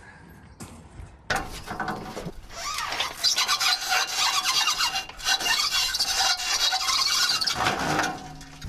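Scraping and rasping as dirt bikes are loaded into a pickup's bed over an aluminium ramp. It starts about a second in and grows louder after about three seconds.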